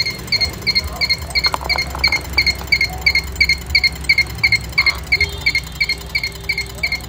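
An electronic beeper sounding a short, high beep about three times a second without stopping, like a warning chime, over a steady low hum.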